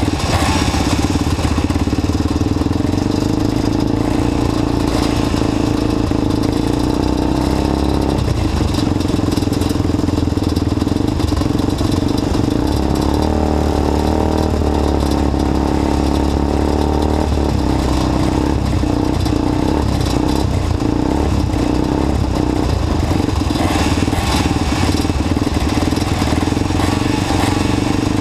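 Several ATV engines idling together at close range, a steady low running sound whose pitch shifts a little now and then.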